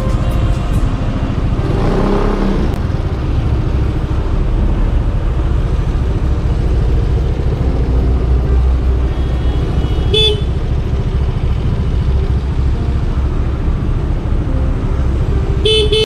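Aprilia SR scooter running at low speed, a steady low rumble. A vehicle horn toots briefly about ten seconds in, and again just before the end.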